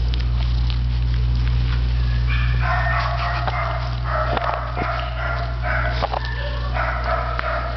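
A small dog giving a series of high, drawn-out whining calls, about four of them, starting around three seconds in, over a steady low hum.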